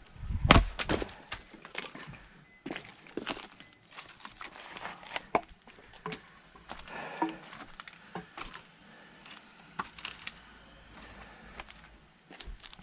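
A firewood-splitting strike: a loud axe blow with a deep thud about half a second in as the log splits, followed by scattered knocks and clacks of split wood pieces, and another low thump near the end.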